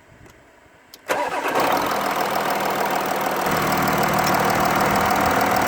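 Car engine starting about a second in, then idling steadily, with a steady metallic squeal running through the engine noise.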